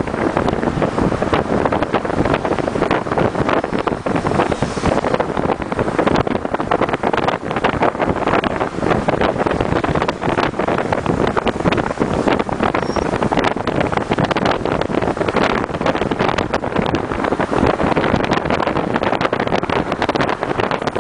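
Wind buffeting the microphone through the open window of a moving car, over steady road and engine noise from the car.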